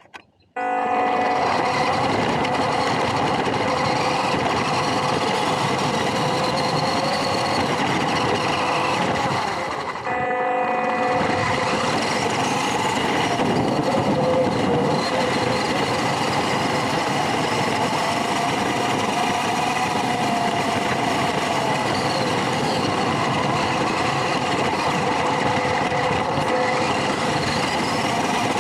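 Small RC pickup truck running: electric motor and gear whine over steady rolling noise, heard close up. It starts abruptly about half a second in and cuts out briefly about ten seconds in.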